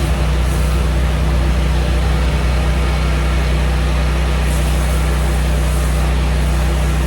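Pressure washer running steadily: a constant engine hum with a hiss of water spray over it.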